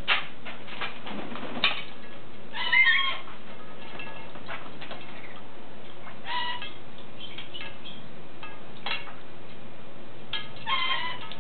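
Pet parrots giving short calls four times, a few seconds apart, over the splashing and wing-fluttering of an African grey parrot bathing in a shallow dish of water.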